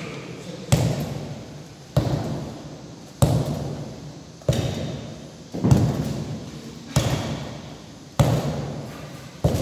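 A long iron bar with no hammer head, swung overhead and slammed down onto a large rubber tyre. There are eight heavy strikes at a steady pace, about one every second and a quarter, and each dies away slowly.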